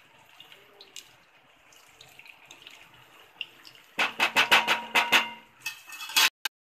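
Hot oil sizzling and crackling as minced-mutton patties deep-fry in a kadhai. About four seconds in comes a burst of loud, rapid crackles, and then the sound cuts off abruptly.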